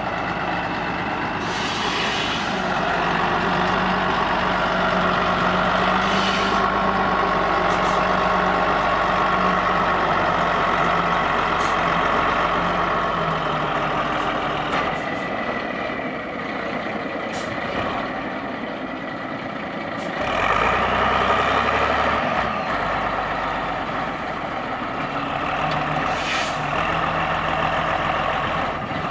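Stalowa Wola Ł-34 wheel loader's diesel engine working under load while it drives and lifts its straw-stacking boom, with a steady whine over the engine note. The engine surges loudly a little over two-thirds of the way through, and there are three short hisses.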